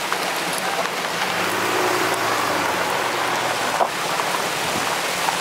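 Creek water rushing steadily over rocks, with a pickup truck's engine humming low as it drives past across the creek crossing, from about a second in until near four seconds.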